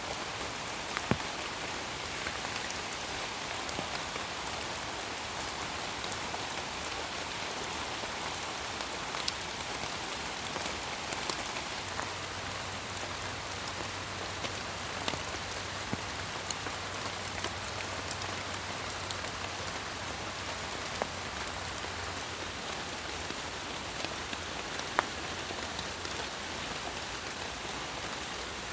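Steady rain falling on forest leaves and undergrowth: an even hiss with many separate drops striking nearby leaves, a few louder than the rest.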